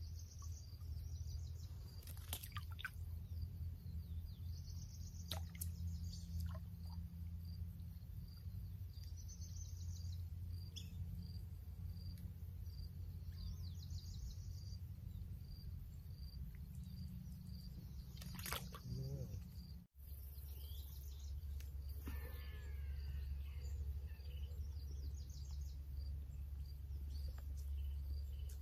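Outdoor ambience: a steady low rumble with short, repeated bird trills and chirps every few seconds.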